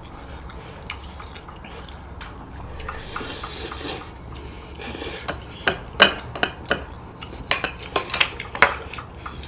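Eating at the table: ramyeon noodles slurped, then chopsticks and spoons clicking and scraping against a metal pot and bowls in a quick string of sharp clinks through the second half.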